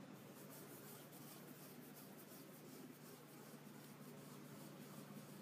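Near silence: room tone with a faint steady low hum and light rustling.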